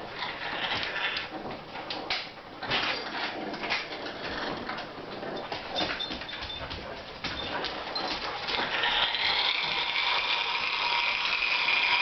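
African grey parrot growling: a run of short raspy growls, then a louder unbroken growl from about nine seconds in, a sign of its displeasure at a dog.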